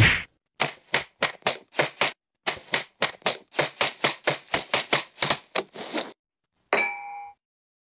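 A rapid flurry of dubbed punch sound effects, short sharp hits at about four a second, in a stop-motion fight. Near the end comes one separate, longer hit with a brief ring.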